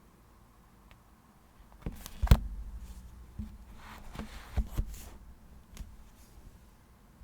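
Diary and stationery being handled on a desk: a few sharp taps and knocks, the loudest about two seconds in, with a short stretch of paper rustling in the middle.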